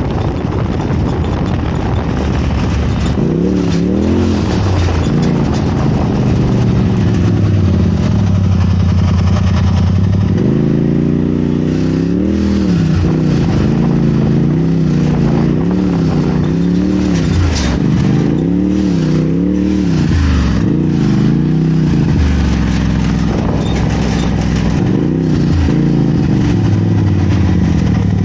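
Off-road race vehicle's engine heard from onboard, its pitch rising and falling about once a second through the middle as the throttle is worked on and off, steadier at the start and near the end, with a few brief knocks.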